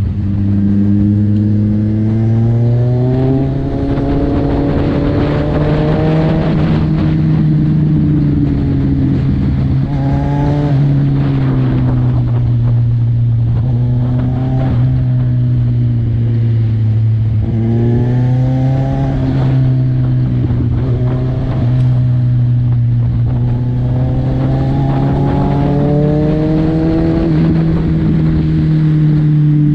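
Kawasaki Z1000 inline-four engine and exhaust running under way, its pitch sweeping up and easing back several times as the throttle is opened and closed through the bends, over wind noise.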